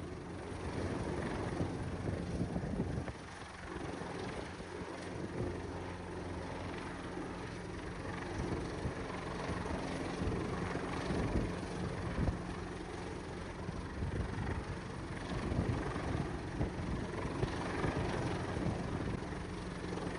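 Large rescue helicopter hovering overhead, its rotors and engines giving a steady hum.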